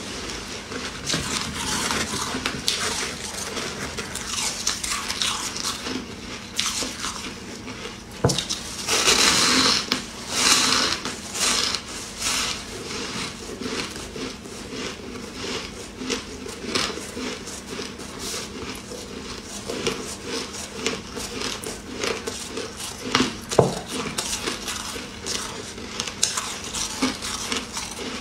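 Close-up crunching of soft crushed white ice being chewed: a dense run of crackles, loudest for a couple of seconds around the middle.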